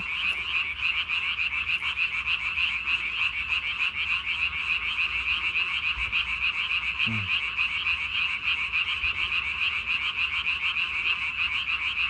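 Japanese tree frogs calling: a steady chorus of rapid, pulsed calls that goes on without a break.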